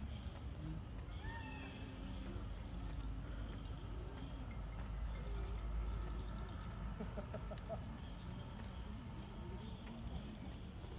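Night insects chirping in a fast, steady pulsing trill that grows more distinct toward the end, over a low steady rumble.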